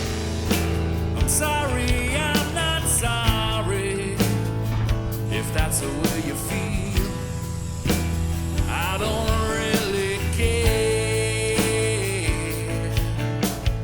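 Background rock music with a steady drum beat and bass.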